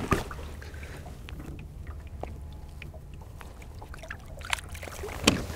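Small splashes and drips of water at a boat's side as a perch is released by hand back into the water, with a few light knocks and a steady low rumble underneath.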